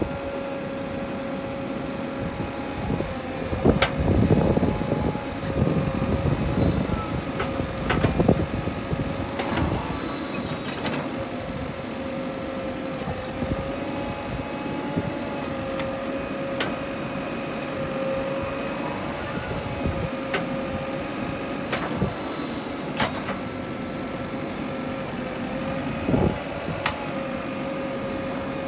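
Diesel engine of a JCB 3DX backhoe loader running steadily while digging and loading soil, with a steady high whine over the engine note. Occasional sharp knocks a few seconds apart come from the bucket and arm working.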